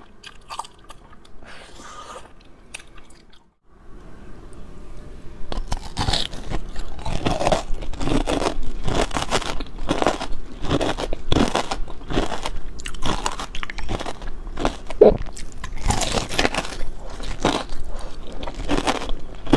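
Close-miked eating of crystal candy (kohakutou): after a few seconds of soft chewing and a brief silent break, a long run of loud, crisp crunching bites and chewing follows.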